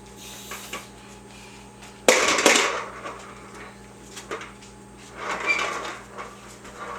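Refrigerator door knocked and rattled by a small child: one sudden loud clatter about two seconds in, and a softer rustling scuffle a few seconds later, over a steady low hum.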